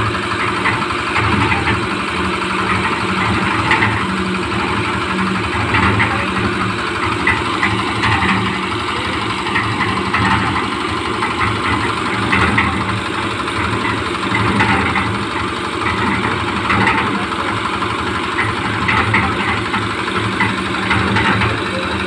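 Concrete mixer machine running: a steady engine drone that holds level throughout.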